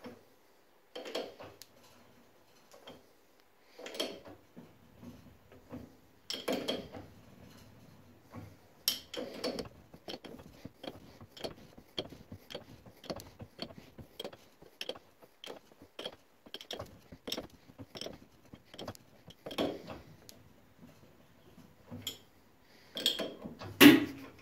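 Boxford lathe turned slowly by hand at the chuck, its geared drive giving a run of metallic clicks and clunks, about two a second at their steadiest, as 3 mm silver steel wire is wound into a corkscrew coil. A louder metal clunk comes near the end.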